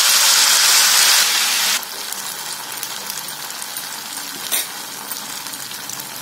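Malpua batter hitting hot desi ghee in a non-stick pan with a loud sizzle as it is poured. About two seconds in, the sizzle drops sharply to a steadier, quieter frying with small crackles as the batter cake bubbles in the ghee.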